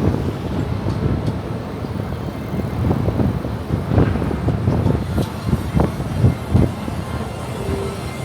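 City street traffic noise: a low, steady rumble of passing cars, broken by irregular low knocks.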